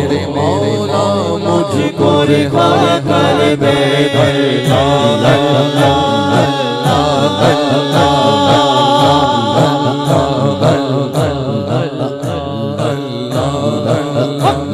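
A man's voice singing an Urdu naat (Islamic devotional song) into a microphone, the melodic lines bending and ornamented without a break.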